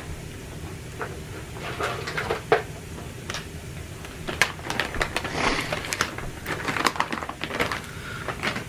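Irregular clicks, taps and light rustling, like things being handled and moved about. The clicks get busier from about four seconds in.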